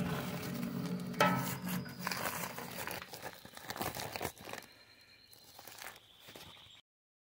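Woven plastic sack full of chopped styrofoam being handled and opened, rustling and crinkling irregularly, with a sharp click about a second in; the rustling grows fainter toward the end and then cuts off.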